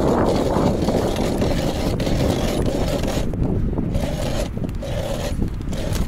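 Wind buffeting the microphone: a steady low rumble.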